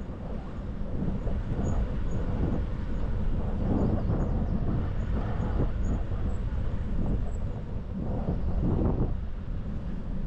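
Rolling noise of a bicycle on a paved path mixed with wind rushing over the GoPro's microphone, a low steady rumble that swells several times.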